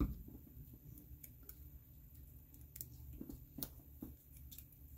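Quiet handling sounds: a few light, scattered clicks and taps as a plastic glue bottle and a small folded paper strip are handled and the bottle is set down on a craft mat.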